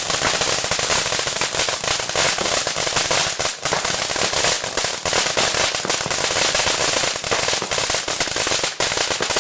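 String of firecrackers going off: a dense, rapid, continuous crackle of sharp pops.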